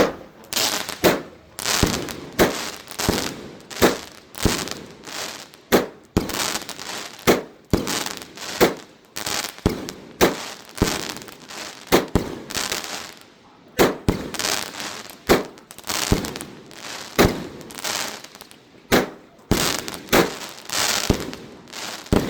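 A 16-shot consumer fireworks cake firing its shots one after another, a sharp bang about every second, each with a short fading tail.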